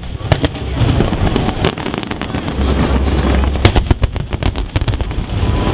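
Aerial firework shells bursting overhead: a quick, uneven series of bangs and crackles over a low, rumbling boom.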